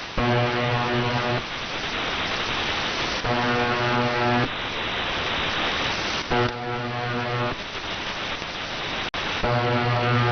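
UVB-76 'The Buzzer' shortwave time-signal station on 4625 kHz heard over a radio receiver: a harsh, low buzz tone about a second long, repeating roughly every three seconds, four times, over steady static hiss.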